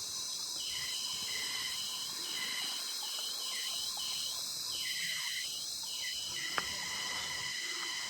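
Insects droning in a steady, unbroken chorus, with one sharp click about six and a half seconds in.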